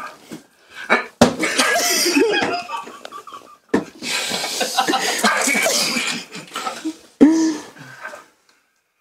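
Screeches blared through a megaphone, with laughter from the group. There are three loud bursts, each starting suddenly, about a second, four seconds and seven seconds in.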